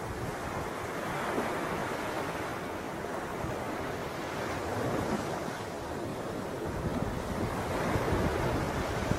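Wind rushing over the microphone, a steady noise that swells and eases every second or two, with no bird calls standing out.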